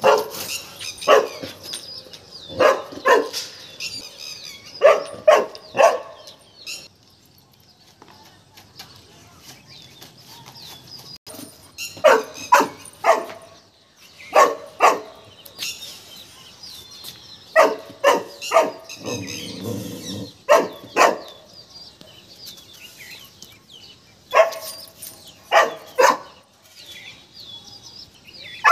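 Golden retriever puppy barking in repeated bursts of two to four short, sharp barks, with pauses of a few seconds between bursts. It is barking warily at a peacock.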